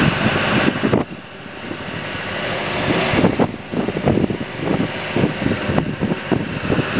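Wind buffeting the microphone in irregular gusts. About a second in, an earlier steady broad rushing noise cuts off sharply.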